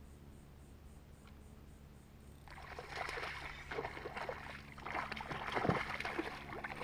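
A fish strikes the lure right beside the boat about two and a half seconds in, then thrashes at the surface on the line, throwing up repeated splashes.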